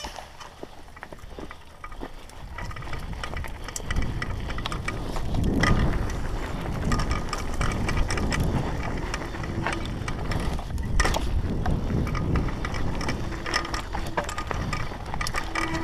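Downhill mountain bike running fast over a dirt trail: many sharp clicks and rattles from the bike over the bumps, with a heavy wind rumble on the camera's microphone that builds about four seconds in as the bike picks up speed.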